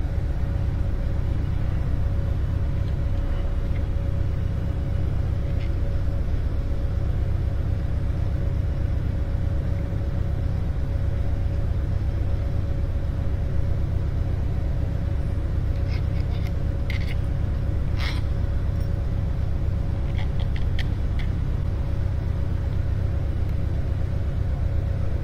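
Steady low rumble with a constant mid-pitched hum, from shop background noise; the engine itself is not running. A little past the middle come a handful of short, light metallic clicks and taps as tools and parts are handled on the engine's cylinder head.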